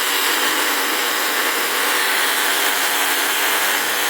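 SINPY 6-inch battery-powered mini chainsaw running as it cuts into wood, a steady high whir that holds at one level throughout.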